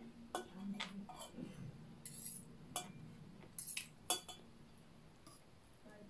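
Metal fork and spoon clinking and scraping against china plates while eating: a string of sharp clinks, the loudest about four seconds in.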